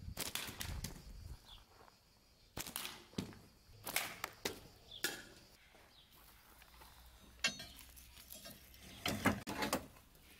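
Short clusters of sharp knocks and clatters, a second or two apart, from rusted rebar and scrap boards being handled and pulled from a scrap pile.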